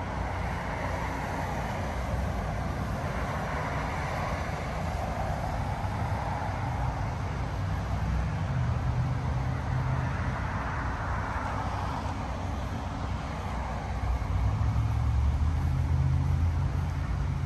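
Road traffic outdoors: a steady low rumble, with two vehicles passing, each swelling and fading over a few seconds. The rumble grows louder near the end.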